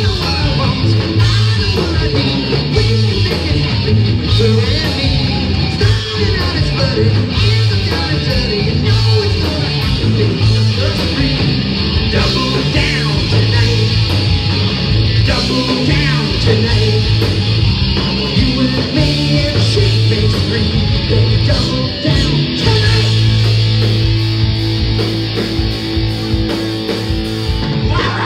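A hard rock band playing live: electric guitar and a full drum kit, with a chord held for several seconds near the end.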